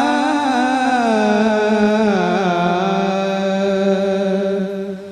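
A single man's voice reciting a naat, holding long drawn-out notes that slide slowly downward in pitch, fading out near the end.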